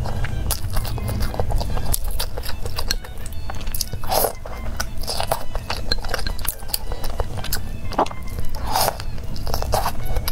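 Close-up chewing of noodles and fried tofu, with wet mouth clicks and smacks and a few louder slurps, over background music.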